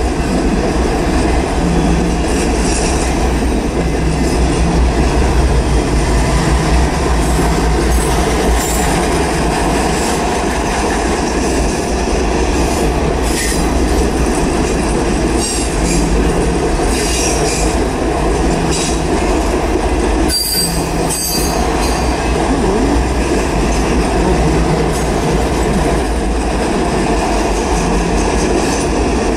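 Norfolk Southern freight train of autorack cars rolling by, a loud, steady rumble of wheels on rail. Brief high-pitched wheel squeals come and go in the middle of the passage, the clearest about two-thirds of the way in.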